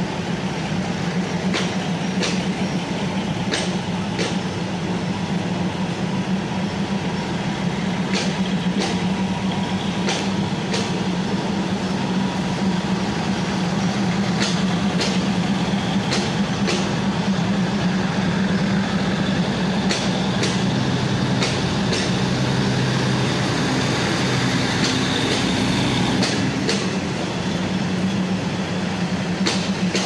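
Diesel railcar passenger train rolling past as it departs: a steady diesel engine hum under a rumbling of wheels, with sharp clicks, often in pairs, as the wheels cross rail joints.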